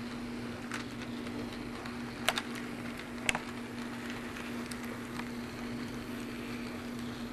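HO-scale model train rolling past on the layout's track: a steady electric hum with the rattly rumble of small wheels on rail, and two sharp clicks a little after two and three seconds in.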